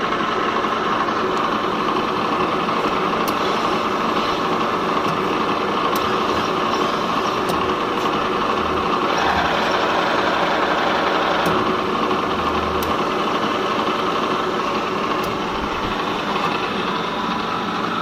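Spline rolling machine running, a steady mechanical noise with a few light clicks and some low thumps around the middle.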